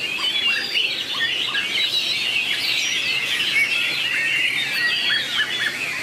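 White-rumped shamas singing against each other in a song duel: a dense, unbroken stream of quick, varied whistled phrases, notes sliding up and down and overlapping.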